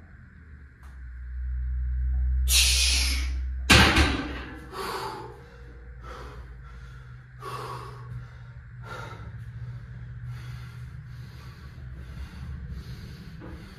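A heavy thud about four seconds in. After it, a man breathes hard and fast, with gasps and snorts, as he recovers from a strenuous lift.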